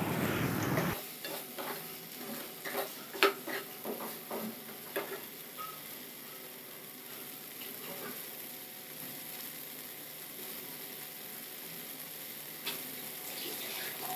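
A spatula stirs soaked chickpeas through thick tomato-onion masala in a nonstick kadai, with a run of scrapes and knocks against the pan over the first few seconds. Then the masala sizzles steadily in the oil, with one more light knock near the end.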